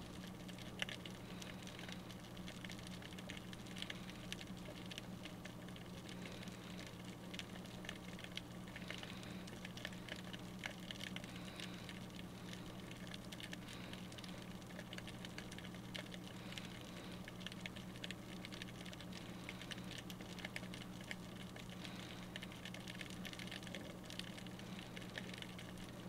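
Faint underwater ambience picked up by a submerged GoPro: a dense, irregular crackle of tiny clicks over a steady low hum.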